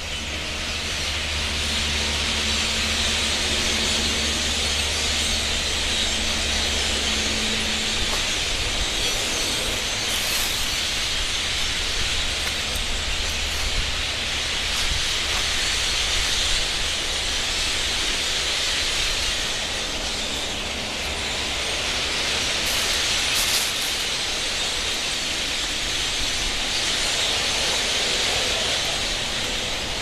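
A large flock of blackbirds in the trees and flying overhead, many birds calling at once in a loud, dense, unbroken din.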